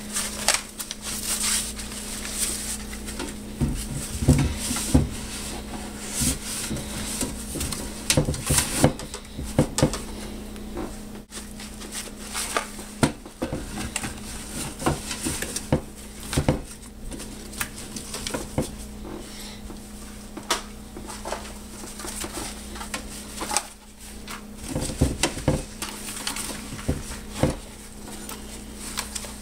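Fabric bandoliers full of loaded AR magazines being packed into a large metal 40mm projectile ammo can: irregular knocks and clunks as the magazine pouches bump against the can and each other.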